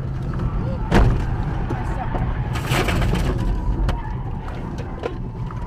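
Steady drone of road and engine noise heard inside a moving car. About a second in there is a single sharp bang, then a short burst of harsh, crunching noise near the middle, as a car close alongside loses control.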